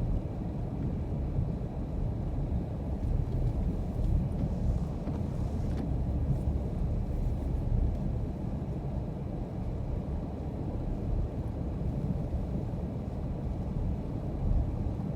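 A car driving steadily, with a continuous low rumble of tyres and engine.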